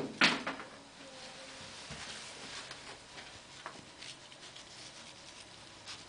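Faint scratchy rubbing of a miswak chewing stick worked over the teeth, with a few small clicks. A brief sharp sound comes just after the start.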